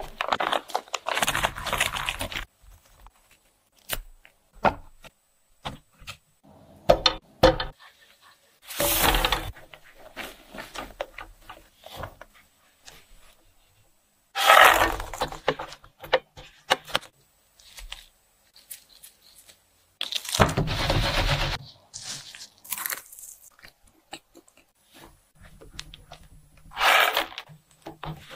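Close-up cooking sounds in separate bursts of a second or two, with short clicks between: a spatula stirring sticky melted-marshmallow batter in a non-stick pan and ingredients being handled.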